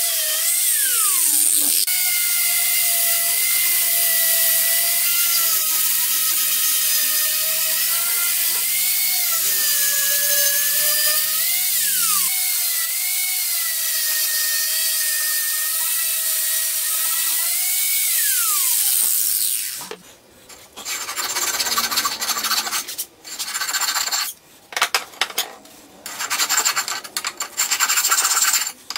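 Angle grinder with a flap disc grinding the steel of an old axe head: a steady whine whose pitch wavers under load and briefly sags a few times, winding down about two-thirds of the way through. Irregular hand-worked scraping strokes on the steel follow, with short gaps between them.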